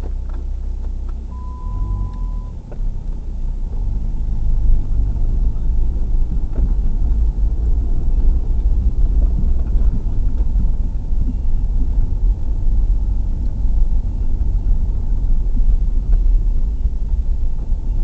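Car running and rumbling over a rough dirt track, heard from inside the cabin, the bumping getting louder and more uneven from about four seconds in. A short steady beep sounds once about a second in.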